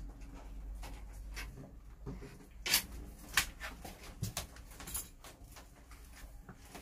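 Handling noise from electrical wires being pulled and routed along a bus ceiling: a few sharp clicks and rustles at irregular intervals, the loudest two about a second apart, over a low steady hum.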